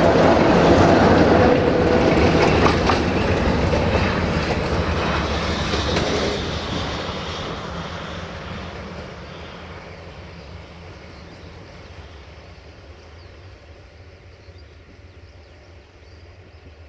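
Freight train wagons rolling on the rails. The sound fades steadily as the train moves away.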